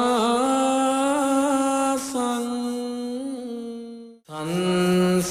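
Buddhist monastic chanting of Pali verses, a single voice drawing out each syllable in a slow, held chant with slight wavering in pitch. About four seconds in the voice breaks off briefly for a breath and comes back on a lower note.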